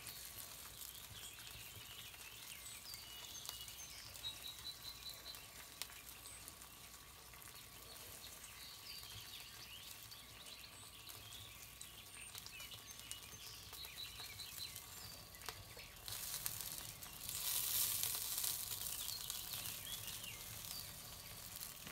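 Faint, steady sizzling and crackling of fat and juices from a barked pork roast on an open charcoal smoker's grate, growing louder for a few seconds near the end. A bird trills briefly twice.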